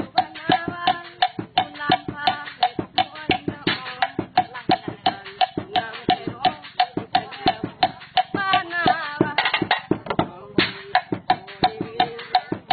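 Homemade drum kit beaten with drumsticks in a quick, steady rhythm: a hollow tube drum, a plastic bottle and a sheet of metal struck in turn, with sharp, evenly spaced knocks.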